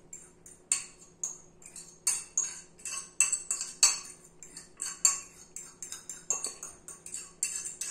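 Metal fork scraping and tapping against a small ceramic bowl in quick, irregular strokes, scraping grated lemon zest out into a mixing bowl. A faint steady hum runs underneath.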